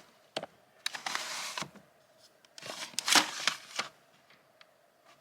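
Plastic CD cases being handled: sharp clicks and clatter with rustling, in a few short bursts, loudest a little past halfway.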